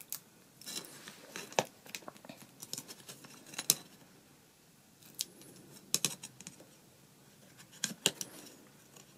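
Metal ruler clicking and tapping against card and a cutting mat as card is folded over its edge, with soft card rustling between. The clicks come singly and in pairs, the loudest a little under four seconds in.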